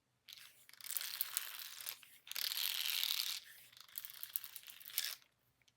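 Crinkling, rustling noise from an object being handled or shaken, in three stretches with brief gaps. It stops about five seconds in.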